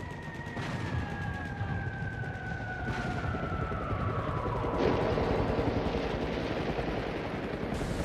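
War-film battle sound effects: rapid gunfire under the whistle of falling shells, which slides slowly down in pitch over several seconds. The barrage grows denser and louder about five seconds in.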